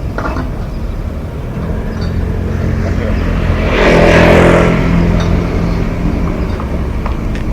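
A motor vehicle passing by, swelling to its loudest about four seconds in and then fading, over a steady low rumble.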